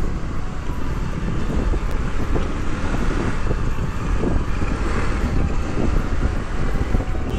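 Wind buffeting the microphone of a riding scooter, over the scooter's engine and road noise, as it picks up speed along a street.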